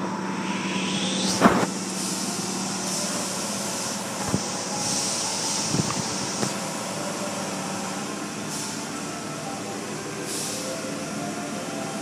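Automatic car wash heard from inside the car: water spraying and running down the side window with a steady rushing noise. A sharp knock sounds about a second and a half in, with a few lighter knocks over the next few seconds.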